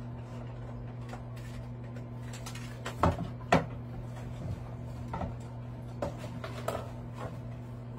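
Cardboard packaging and plastic mirror parts handled while a makeup mirror is unpacked: two sharp knocks a little after three seconds in, then a few lighter taps, over a steady low hum.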